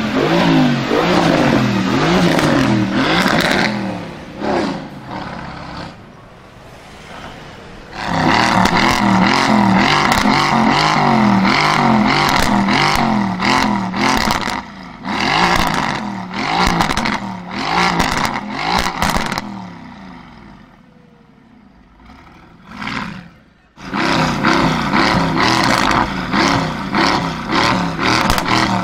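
Straight-piped Mercedes-AMG GT S with modified downpipes, its twin-turbo V8 revved hard in quick repeated blips, the pitch swinging rapidly up and down. The revving twice drops away to quieter running for a few seconds before picking up again.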